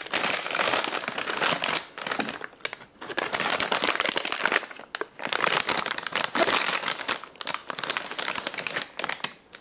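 Plastic and foil ration packaging crinkling as it is handled, on and off with a few short pauses.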